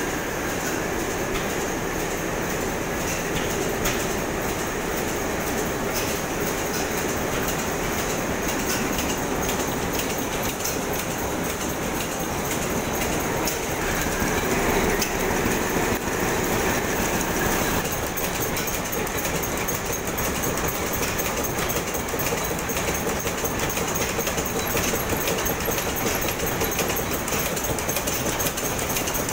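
Vintage stationary engines and exhibit machinery running together, a steady, dense mechanical clatter of rapidly repeating knocks.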